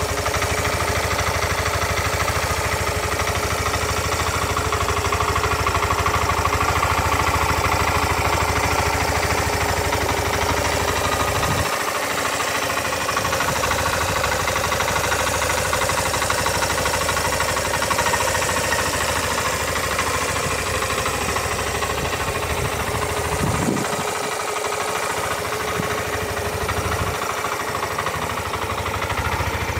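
Suzuki RV125 Van Van's single-cylinder four-stroke engine idling steadily, heard close to the engine and exhaust.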